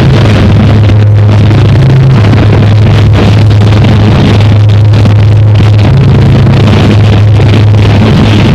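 Harsh noise music: a dense, distorted wall of noise over a loud low drone that shifts slightly in pitch a few times, held at a constant very high level without a break.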